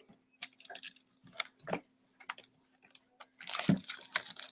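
A sealed hockey card box being cut and opened with a box cutter: a few light clicks and taps, then a scratchy tearing sound from about three and a half seconds in, over a faint steady hum.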